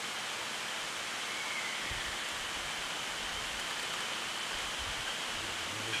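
Steady rushing background noise of the forest, like running water, with a faint steady high-pitched tone running through it.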